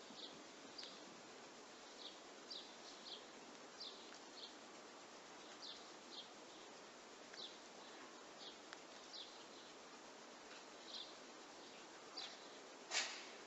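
Faint steady hiss with a bird chirping: short high chips about once a second, at uneven spacing. A single sharp knock, louder than the chirps, comes near the end.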